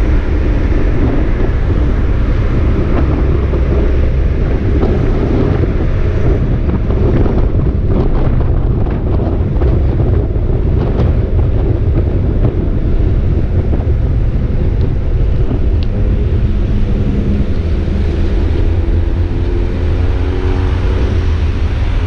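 Steady low rumble of wind buffeting a bicycle-mounted GoPro's microphone while riding, with car traffic passing alongside.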